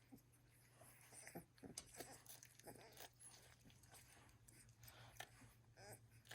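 Faint wet smacking and sucking clicks of Welsh Springer Spaniel puppies nursing, with an occasional small squeak.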